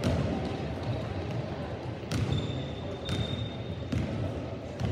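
Basketball dribbled on a hardwood gym floor, with a few separate bounces about a second apart over the low, steady background noise of the gym.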